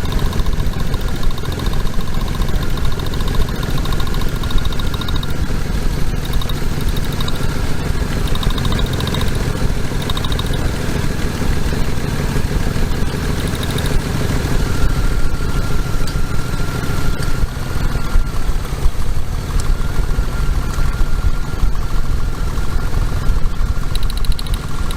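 2001 Ford F150's 4.2-litre V6 running at idle with an uneven beat, misfiring on cylinder 4, which the mechanic blames on a bad brand-new ignition coil.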